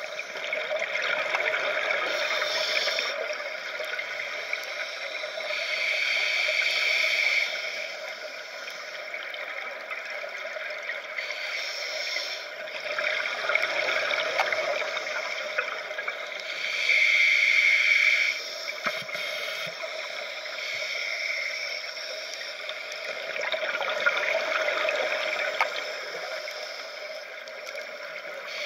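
Scuba diver breathing through a regulator underwater: bursts of exhaust bubbles gurgling for a second or two, roughly every five seconds.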